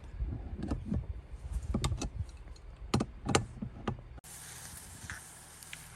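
Knocks and clicks from parts and tools being handled during gas-line work, several sharp ones in the first four seconds. After about four seconds the sound changes abruptly to a steady low hum with a few faint ticks.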